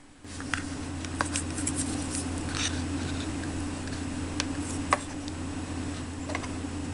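Light clicks and taps of small pieces being handled: a tiny plate, miniature bread and wooden chopsticks set down on a little wooden cutting board. A steady low hum comes in just after the start and runs under the taps.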